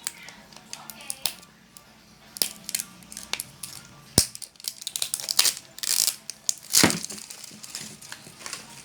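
Plastic wrapping of a surprise toy package crinkling and crackling as it is handled and opened, in irregular sharp crackles that are loudest and densest about halfway through.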